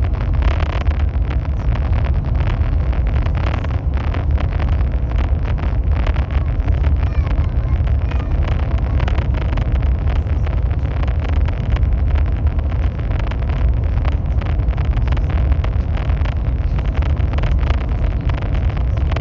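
High-speed train running at speed: a steady low rumble and rushing noise with many faint short clicks through it.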